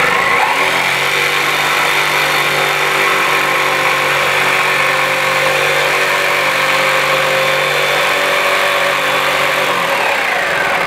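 Electric jigsaw running and cutting into a wooden board. Its motor spins up just after the start, holds a steady pitch through the cut, and winds down near the end.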